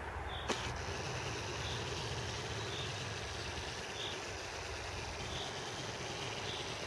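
Outdoor ambience: a steady low rumbling noise, with a faint short high chirp repeating roughly once a second and a single click about half a second in.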